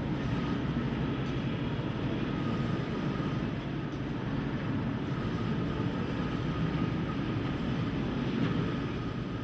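Mazak Optiplex 3015 CO2 laser cutting machine running: a steady mechanical drone with a faint thin whine above it.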